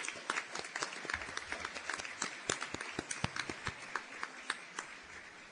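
Audience applause: many hands clapping in a dense patter that thins and fades near the end.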